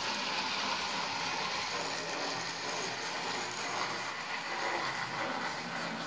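Old Tri-ang Stephenson's Rocket model locomotive running round the track with its coaches: a steady whirr of the small electric motor and wheels on the rails.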